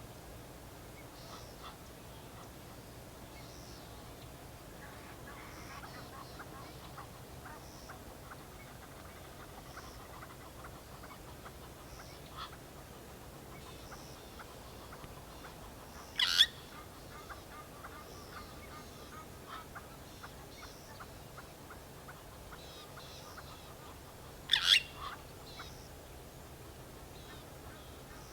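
Glossy starling calling: two short, loud calls about eight seconds apart, with softer chirps and chattering between them.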